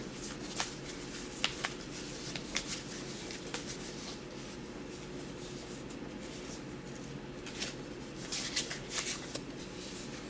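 Oracle cards being shuffled and handled: scattered soft flicks and taps, more of them close together near the end, over a low steady room hum.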